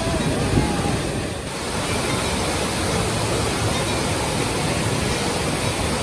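Steady rush of water from river rapids and waterfall cascades, with a brief dip about a second and a half in.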